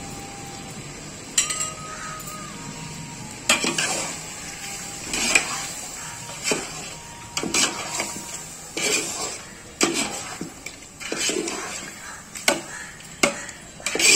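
Metal spoon knocking and scraping against a cooking pot, about a dozen irregular clinks, while chicken masala is stirred after curd is added. One clink near the start rings briefly.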